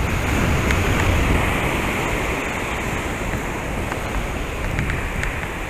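Surf breaking and washing up the beach in a steady rush, with wind rumbling on the microphone.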